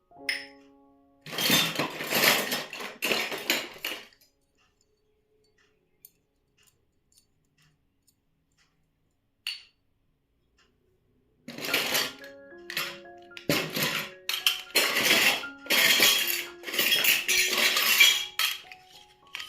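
Miniature toy kitchen pieces clinking and clattering as they are handled. This comes in two spells: from about a second in to four seconds, and again from about eleven and a half seconds to the end. There is a quiet gap between them, broken by one small click.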